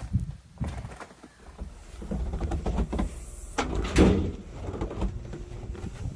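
Footsteps crunching and scuffing through deep snow and crusted ice, with one louder crunching scrape about four seconds in.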